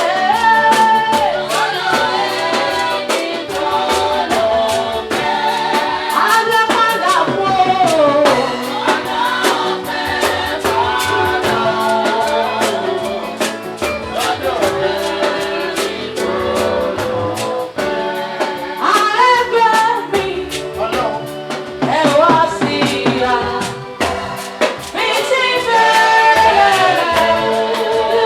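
Live gospel praise music: a woman singing lead over a band with a steady drum beat.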